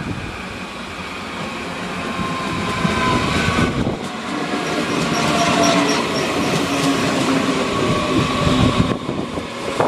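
Red S-Bahn electric multiple unit approaching and passing close by at speed. The rush of wheels on rail and air grows over the first few seconds, with a whine running through it.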